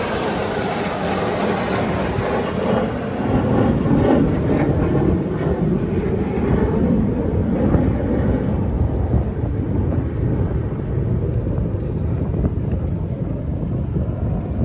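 Jet engine noise from a formation of KAI T-50B jets: a roar whose pitch drops over the first two or three seconds as they pass, settling into a steady low rumble.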